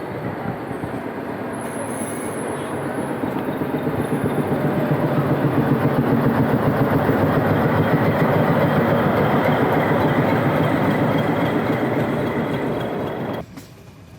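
Nilgiri Mountain Railway toy train rolling downhill behind its diesel engine: a steady running and rattling noise of the coaches and wheels on the track that swells to its loudest midway and cuts off abruptly about a second before the end.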